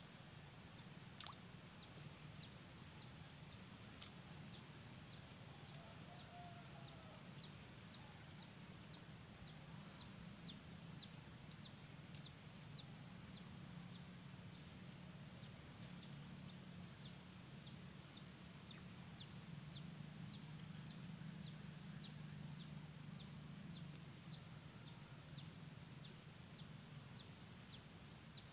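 Faint outdoor wildlife ambience: a steady high-pitched buzz, a short chirp repeating about twice a second, and a low hum underneath.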